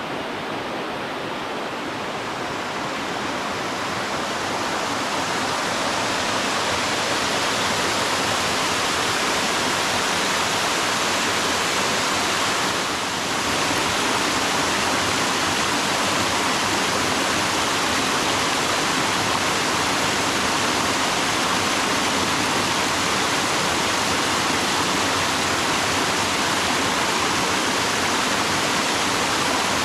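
Mountain valley stream rushing over rocks, a steady full splashing rush with a brief dip about halfway through.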